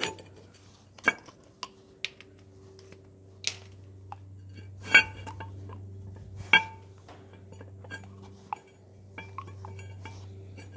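Metal clinks and knocks as a brake caliper is handled and turned over in the hands, with a metal tool tapping against it. About eight separate clinks; the two loudest, about five and six and a half seconds in, ring briefly. A steady low hum runs underneath.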